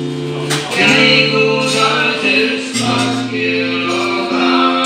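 Live folk instrumental: a button accordion playing held chords and a melody, with notes changing about once a second, and a few strummed strokes from a second instrument.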